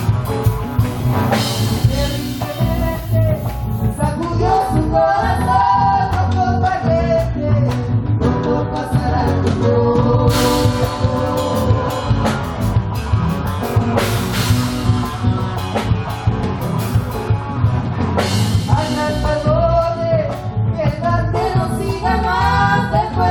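Live band playing Argentine folk music through a PA system: a singer over guitar and drums with a steady beat. The vocal lines come in and drop out between instrumental passages.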